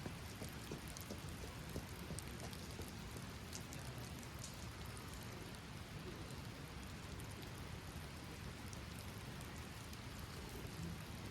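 Steady rain falling, with many scattered drops ticking sharply on surfaces close by.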